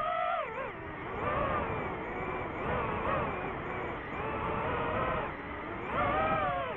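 DJI FPV quadcopter's motors and propellers whining in flight, the pitch sweeping down and up again and again as the throttle changes. The pitch drops sharply within the first second and peaks again about six seconds in.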